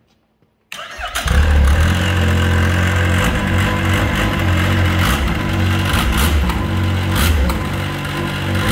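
A 2018 Yamaha Sidewinder snowmobile's turbocharged three-cylinder four-stroke engine starts up about a second in and keeps running steadily. The sled is run on its stand to turn the freshly tensioned track and check its alignment after a new drive belt was fitted.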